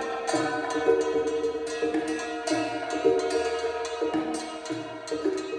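The (proto) elips, an experimental instrument of hollow, resonating wooden pipes and long strings, played percussively: a quick run of knocked, pitched notes, a few per second, that ring on over one another.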